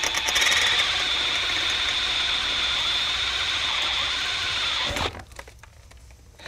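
Cordless drill with a 3/16-inch bit running at speed, boring into the head of a structural pop rivet: a steady high whine with metal-cutting grind. It stops abruptly about five seconds in, as the rivet head comes off.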